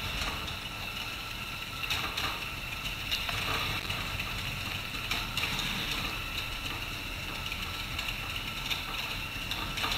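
Small mobile robot's geared drive motors whirring steadily as it manoeuvres, with a few short clicks.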